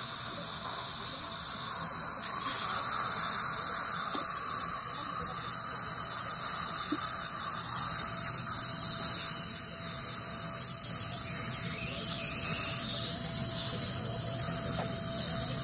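Dental suction hissing steadily in the patient's mouth during braces removal, a watery sucking noise that grows a little louder and more uneven about halfway through.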